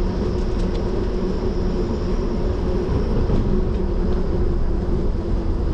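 Wind rushing over the microphone of a riding cyclist, with a steady hum from the bicycle's tyres rolling along the trail.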